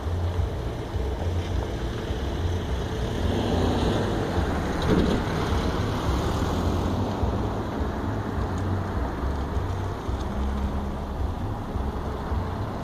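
Scania K420 coach's six-cylinder diesel engine running as the double-decker coach pulls away and turns, a steady low rumble that swells with a rush of noise about four to five seconds in.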